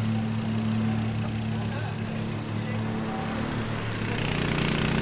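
A motor engine running steadily with a low hum. About four seconds in it changes to a louder, buzzier, fast-pulsing note.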